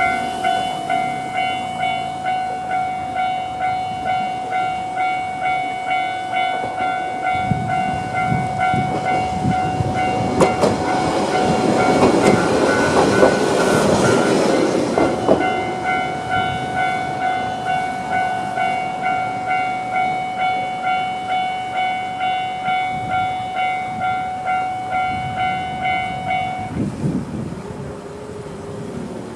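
Japanese level-crossing electronic alarm ringing in a steady, evenly repeating ding-ding. A Yamagata Railway YR-880 diesel railcar passes over the crossing partway through, its wheels clattering over the rail joints, loudest about halfway. The alarm stops near the end.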